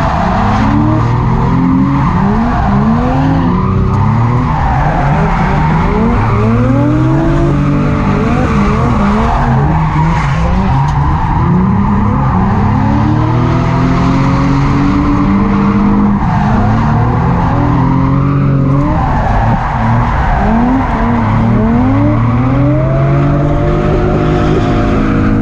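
Nissan 350Z drift car's engine revving hard in repeated rising sweeps that drop back between them, over a steady screech of tyres skidding and squealing through a drift run.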